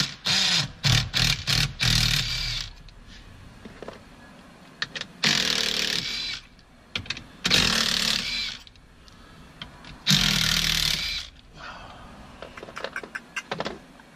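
Cordless power ratchet running in bursts as it spins out 10 mm bolts: a quick cluster of short pulls in the first three seconds, then three longer runs of about a second each with pauses between.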